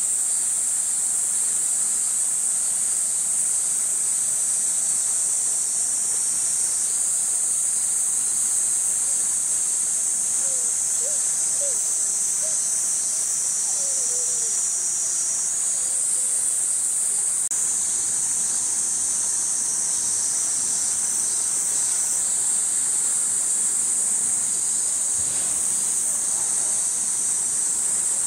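Steady, high-pitched drone of summer insects, a dense chorus that shifts in pitch several times as individual insects join in and drop out.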